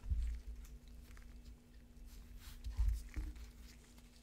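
Gloved hands handling trading cards in plastic sleeves and holders on a table: faint rustling and clicking, with dull bumps against the table at the start and again about three seconds in.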